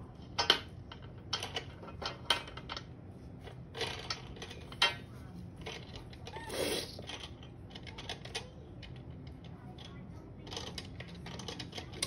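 Wooden beads and parts of a toddler's wooden activity cube clacking as a small monkey handles them, in irregular sharp clicks and knocks.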